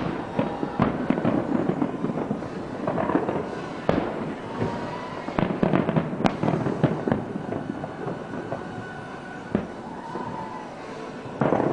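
Fireworks bursting: a dense, irregular run of sharp bangs and crackles, with a loud burst near the end.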